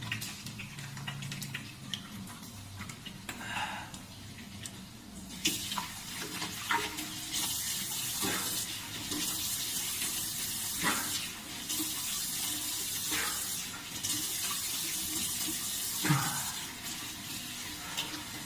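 Water running from a tap and splashing, starting about five seconds in and broken off briefly a few times, with scattered knocks and clatter; one knock about sixteen seconds in is the loudest.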